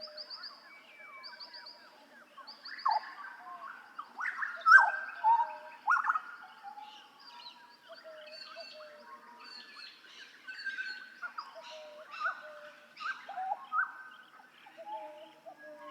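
Hooded butcherbird (Jagal Papua) singing: a run of loud, fluting phrases of down-slurred whistles, with higher quick trilled chirps mixed in. The loudest notes fall about four to six seconds in.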